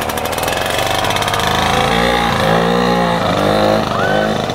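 Snowmobile engine on a homemade go-kart running under throttle as the kart pulls away, its pitch rising and falling with the revs in the second half.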